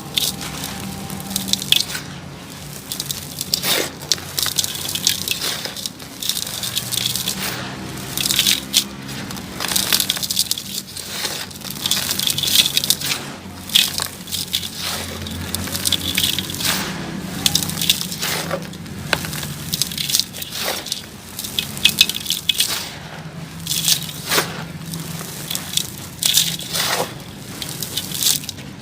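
Sand-cement chunks being crumbled and crushed, a dense run of crunches and crackles with wet, squishy sounds among them.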